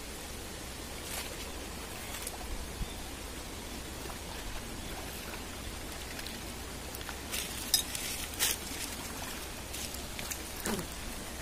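Shallow stream water running steadily over stones, with a few short sharp clicks and taps a little past halfway and once more near the end.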